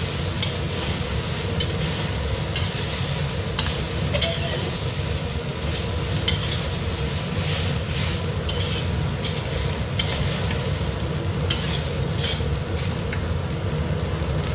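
A metal spatula scraping and tossing fried rice around a wok, with many short, irregular scrapes and clinks over a steady sizzle from the frying.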